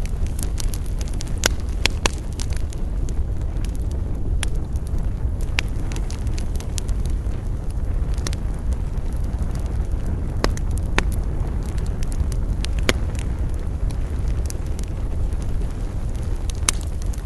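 Campfire crackling, with sharp pops every second or two over a steady low rumble of burning and wind.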